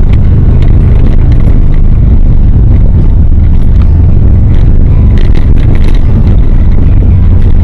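Lifted Subaru Forester driving up a steep dirt 4x4 track: a loud, steady low rumble of engine and tyres on the mic, with a few light ticks from the gravel and body.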